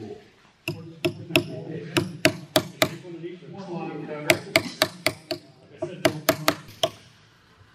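Small ball-peen hammer tapping a chisel to cut an inlet into a wooden longrifle stock: sharp, light taps in quick runs, about sixteen in all, stopping about seven seconds in.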